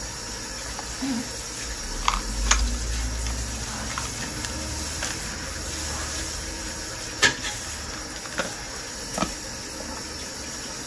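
Small clicks and taps of a light bulb being handled, taken out of its cardboard box and set into a lamp's socket, over a steady hiss. The clicks come singly and well apart, a few seconds between most of them.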